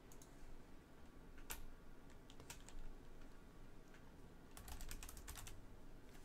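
Typing on a computer keyboard: a few scattered keystrokes, then a quick run of keys about four and a half seconds in.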